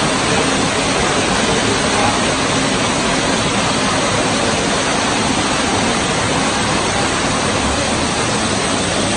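Flash floodwater pouring down a subway station staircase and across the flooded floor: a steady, loud rush of water.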